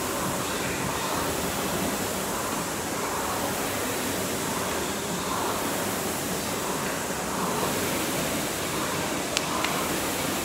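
Concept2 rowing machine's air flywheel whooshing, swelling with each stroke about every two seconds over a steady hiss.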